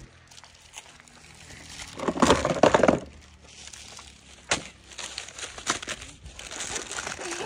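Plastic snack wrappers crinkling and crackling as monkeys handle and tear at them, with a loud burst of crinkling about two seconds in and scattered sharp crackles after.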